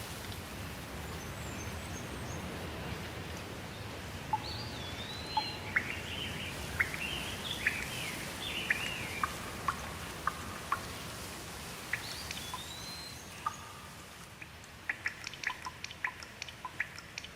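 Steady rain falling, with birds calling through it in a run of short chirps and whistled calls that rise and fall. Near the end the rain thins and separate drops drip in many sharp ticks.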